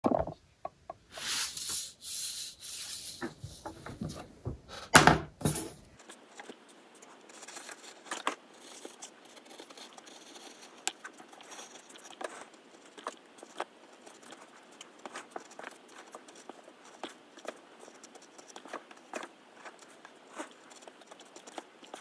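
Precision craft knife cutting a paper stencil on a cutting mat: quiet, irregular ticks and scratches as the blade pierces and draws through the paper. Some louder, noisy sounds come in the first six seconds before the cutting starts.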